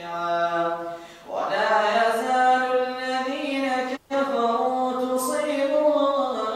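An imam's melodic Quran recitation during congregational prayer: one man's chanted voice drawing out long, held notes. There is a short breath pause about a second in and a brief cut-out in the sound at about four seconds.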